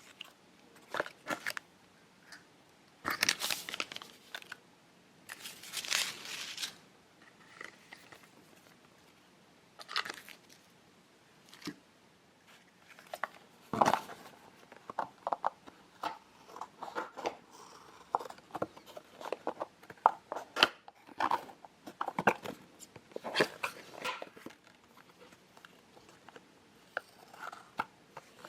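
Packets of a Kracie Popin' Cookin' candy kit being handled, crinkled and torn open, in irregular short bursts of crackling with quiet gaps between them.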